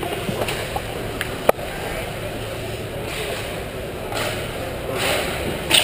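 Ice hockey play heard from rinkside: a steady arena crowd murmur, one sharp crack from the play about a second and a half in, and several short hissing scrapes of skates on the ice in the second half.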